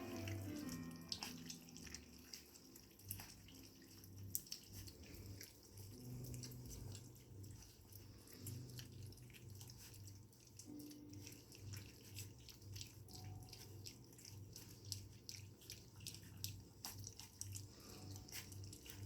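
Three-week-old Australian shepherd puppies lapping and slurping a wet gruel of goat milk, kibble and pumpkin from a bowl: faint, irregular wet smacking clicks.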